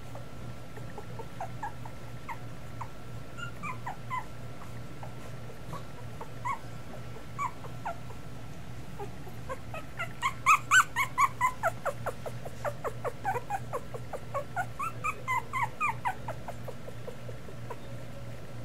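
Two-week-old Miniature Schnauzer puppies whimpering and squeaking. Scattered short, falling squeaks come first. From about halfway through, a dense run of squeals follows, loudest just after the middle, and it dies away a couple of seconds before the end.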